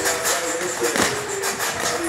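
Background music with the scuffs and knocks of boxers sparring: shuffling footwork on the ring canvas and a sharp knock about halfway through.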